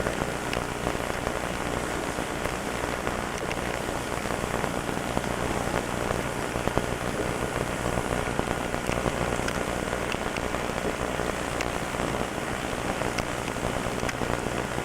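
Steady crackling static hiss with a low hum underneath and scattered faint clicks.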